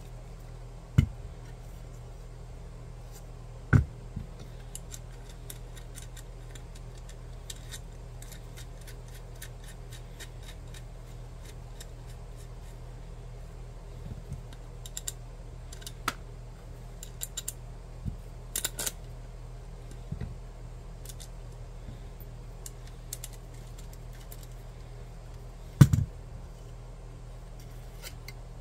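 Small metal hardware being handled as a wheel is bolted to a dolly plate: light clicks and ticks of a nut, washer and bolt, clustered in the middle, with three louder knocks, near the start, about four seconds in and near the end, over a low steady hum.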